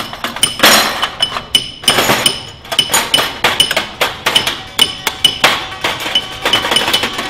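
Percussive music made of metallic clinks, taps and knocks, with a high ringing note struck again and again.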